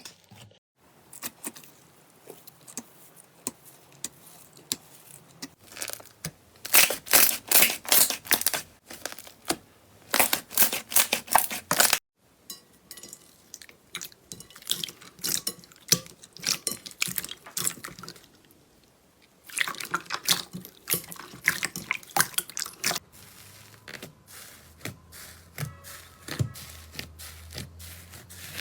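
Slime being squeezed and poked by hand, giving dense runs of sticky crackling, popping and wet clicks. It comes in several separate stretches, with a sudden break about twelve seconds in and a quieter pause a little later.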